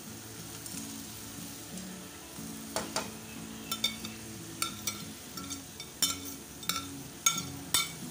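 Food sizzling in a hot frying pan as bitter gourd peels and seeds are pushed off a plate with a metal slotted spoon; from about three seconds in, a string of sharp clinks and scrapes of the spoon on the plate and pan.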